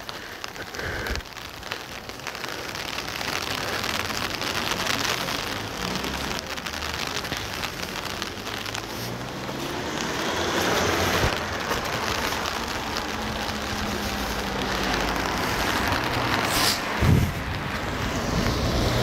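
Steady rain hiss that grows louder after the first few seconds. A low steady hum comes in during the second half, and there is a single sharp knock near the end.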